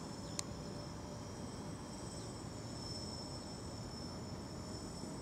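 Crickets chirring in a steady high drone over a low rumbling background, with one sharp click about half a second in.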